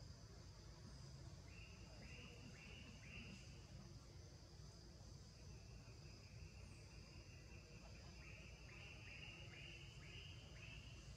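Faint insect chorus: a steady high-pitched drone. Over it come two runs of short, repeated chirps, a few near the start and a longer run in the second half.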